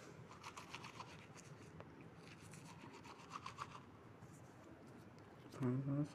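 Faint rubbing and scratching in two short stretches, then a brief hummed voice near the end.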